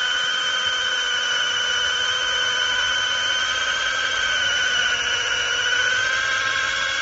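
Battery-powered brushless mini chainsaw (21 V) running with a steady high-pitched motor-and-chain whine.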